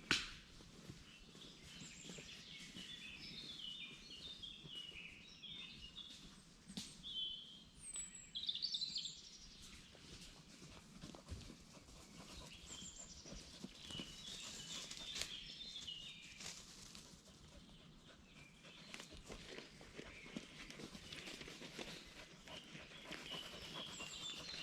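Woodland birds singing, repeated high chirping phrases, with scattered small clicks and crunches underneath.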